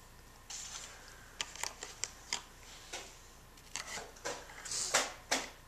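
Irregular light clicks, taps and short rustles of a small child handling plastic toy pieces on a wooden table, about a dozen scattered through the few seconds, busiest near the end.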